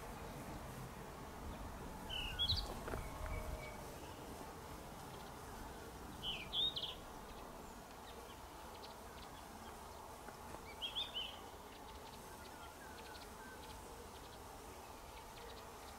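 A bird singing three short, high chirping phrases about four seconds apart over a faint outdoor hiss.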